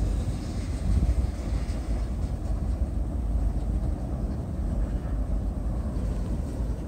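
Long freight train of tank cars rolling across a steel girder bridge: a steady low rumble.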